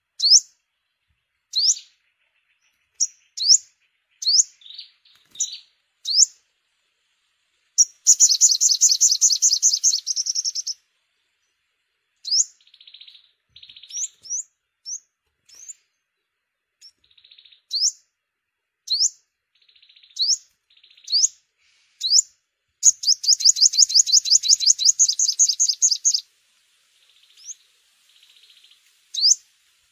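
Yellow-bellied sunbird calling: short, sharp high chirps that sweep upward, given every second or so. Twice the chirps give way to a long, rapid, high trill lasting about three seconds, once around eight seconds in and again around twenty-three seconds in.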